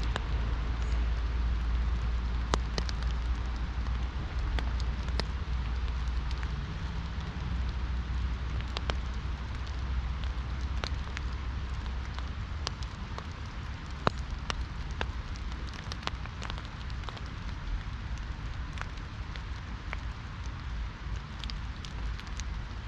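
Steady rain hiss with many single raindrops ticking sharply, typical of rain on an umbrella, over a deep low rumble that eases off about halfway through.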